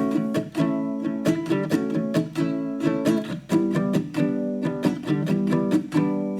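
Background music of a plucked acoustic guitar strumming chords in a steady, bouncy rhythm.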